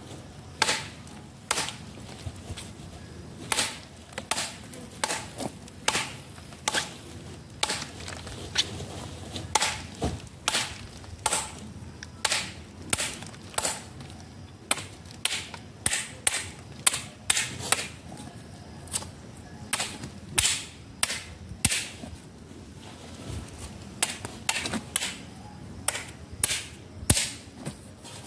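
Repeated sharp strokes of a hand tool chopping into wood, about one to two a second with brief pauses.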